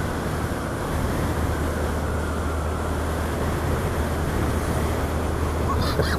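Steady wind rush and road noise of a Honda Monkey 125 motorcycle being ridden through a bend, its engine running underneath as a low steady hum.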